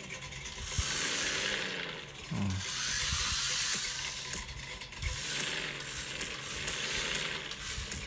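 Toy RC car's small electric motor and gears whirring in surges of a second or two as it is driven in spurts.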